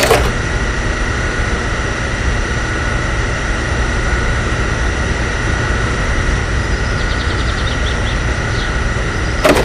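Small motor running steadily: a constant hum with high whines over a low rumble, starting and cutting off abruptly.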